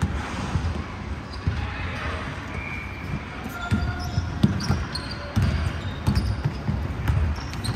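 A basketball being dribbled on a hardwood gym floor, repeated low thuds that come in a quick run in the second half, with brief high squeaks of sneakers on the floor, all echoing in a large hall.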